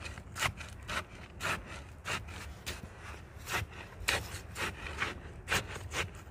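A rod jabbed repeatedly into wet concrete mix in a post hole, grinding and scraping against the gravel, about two strokes a second, to mix the concrete in the hole.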